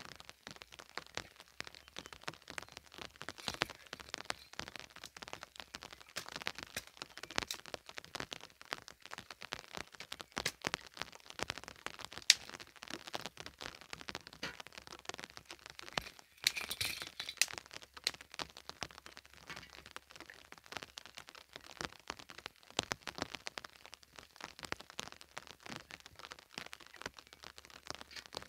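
Wood fire crackling in an open hearth, with irregular sharp pops from the burning damp firewood and a louder pop about twelve seconds in.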